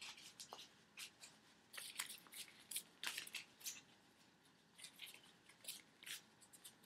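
Tarot cards being handled: faint, scattered papery flicks, ticks and slides of card against card.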